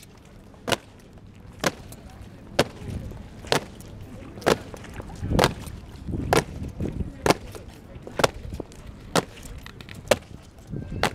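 Honour guard marching in parade step, their shoes striking wet stone paving in unison about once a second, each footfall a single sharp strike.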